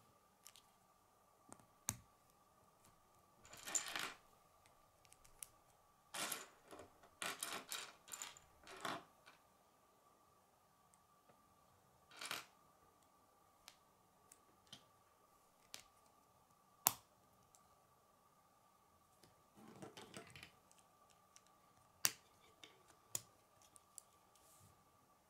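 Plastic K'nex construction pieces clicking, snapping together and rattling as they are handled and assembled, with scattered sharp snaps and a few short bursts of rattling. A faint steady high hum runs underneath.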